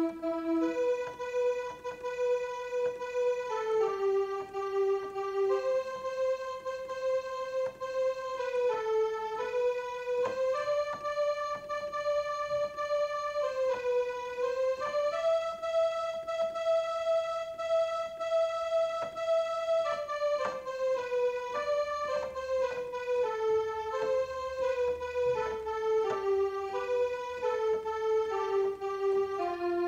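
Electronic keyboard playing a slow melody one note at a time, each note held steady without fading, one held for about five seconds midway.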